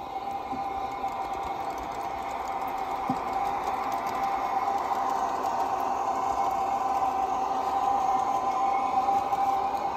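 G-scale garden-railway model electric locomotive running along the track with its coaches: a steady motor and gear whine over the rumble of wheels on the rails, growing louder as it approaches.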